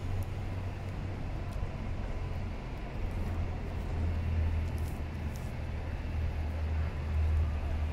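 Steady low rumble of city street traffic, with a few faint ticks over it.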